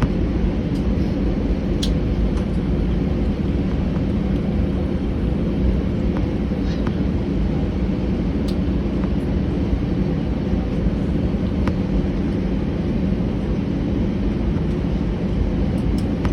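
Steady low rumble and hum of an Airbus A319's jet engines and airframe, heard from inside the passenger cabin while the jet taxis. A few faint clicks sound over it.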